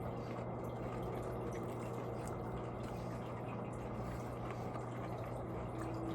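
Close-up chewing of a crispy fried chicken nugget, a few faint crunches, over a steady rushing background noise with a low hum.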